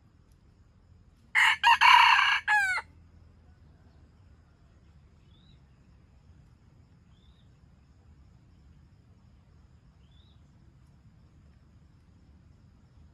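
Junglefowl rooster crowing once, about a second and a half in: a short crow of about a second and a half. Faint high chirps from a small bird follow a few times.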